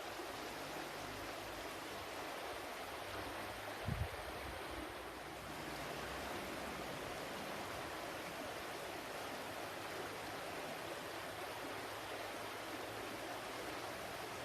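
Flowing water, a steady even rush like a stream. About four seconds in there is one brief low thump.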